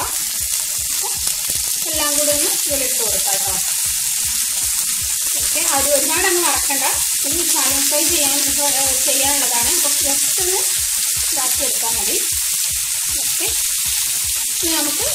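Spice-coated fish steaks frying in hot oil in a pan with curry leaves, a steady sizzle as the pieces are laid in one after another.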